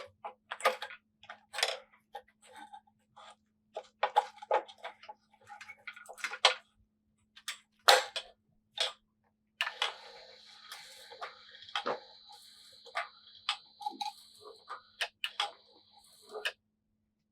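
Scattered metal clicks and knocks as a band-saw blade is handled and set up on a Wood-Mizer BMS 25 blade sharpener. About ten seconds in, a small machine motor starts with a steady high whine, runs for about six seconds, then cuts off suddenly.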